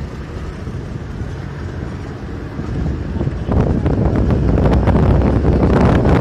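Wind buffeting the microphone at an open window of a moving bus, over the low rumble of the bus running along the road. The buffeting grows much louder about three and a half seconds in.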